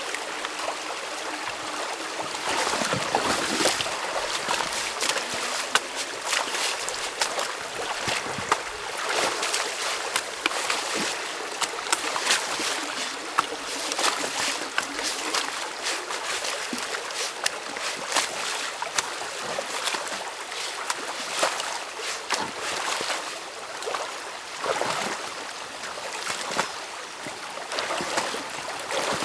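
Stream water rushing and gurgling through a beaver dam of sticks and mud as it is broken open by hand, with frequent splashes and sharp clunks and snaps from branches being pulled out of the water.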